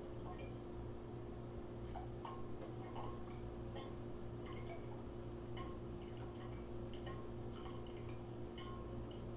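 Metal spoon clinking against a glass jar and basin in short, irregular ticks as syrupy pineapple pieces are spooned into the jar, heard through a TV's speakers over a steady low hum.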